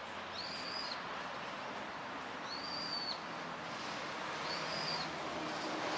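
A bird calling: a short, high, arched whistled note repeated about every two seconds, over a steady hiss.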